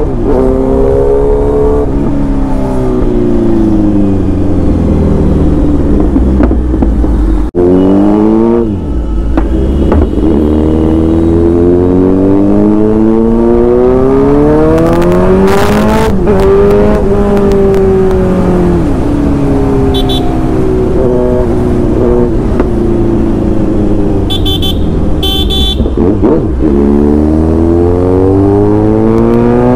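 Kawasaki Z900's inline-four engine revving up and backing off again and again under acceleration, rising and falling in pitch, with crackles from the exhaust. A horn beeps briefly a few times in the second half.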